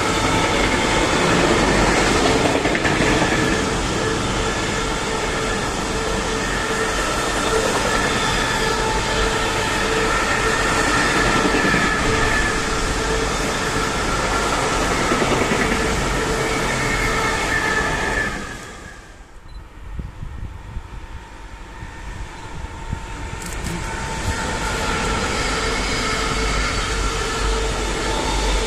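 Long freight train of container and trailer-carrying wagons rolling past, with a steady rumble of wheels on rail and some steady high whining tones over it. The noise drops away sharply about two-thirds of the way through and builds back up over several seconds.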